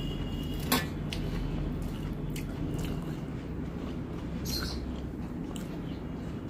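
Eating by hand: chewing, with fingers squishing through curry and picking up chicken pieces, giving scattered small clicks and one sharp click about a second in, over a steady low hum.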